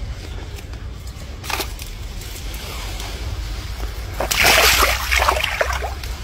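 Water splashing and sloshing: a brief splash about a second and a half in, then a longer, louder bout of splashing about four seconds in, over a steady low rumble.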